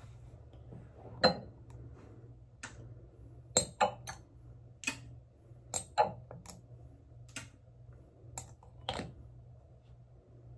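About a dozen sharp clicks and taps at uneven intervals, from small toiletry bottles and a glass oil dropper being handled on a bathroom countertop. A low steady hum runs underneath.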